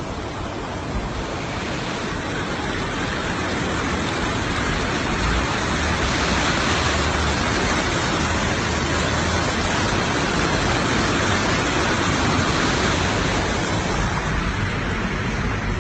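Rushing river water flowing across a flooded causeway and splashing around a four-wheel drive driving through it, with the vehicle's engine running low underneath. The rush grows louder over the first several seconds and then holds steady.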